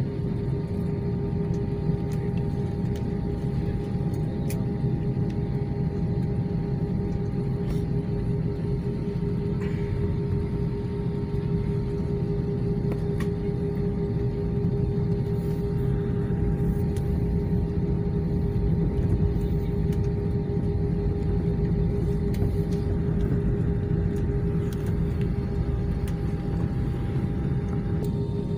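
Cabin noise of a jet airliner moving along the runway: a steady engine hum with a held tone over a low rumble, swelling slightly past the middle.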